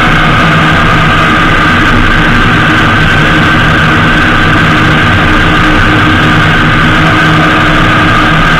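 Honda GL1800 Gold Wing motorcycle cruising at a steady speed: its flat-six engine and the rush of wind and road noise make one loud, unbroken drone, picked up by a camera mounted on the fairing.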